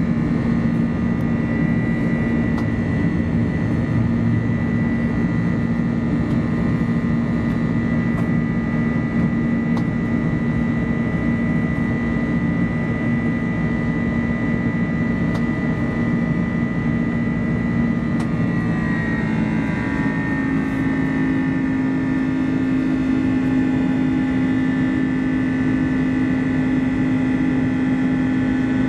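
Airbus A330-200's Pratt & Whitney PW4168A turbofan engines running, heard inside the cabin as a steady drone with a steady whine on top. About two-thirds of the way through, the engine tones shift pitch and then settle steadily at the new pitches.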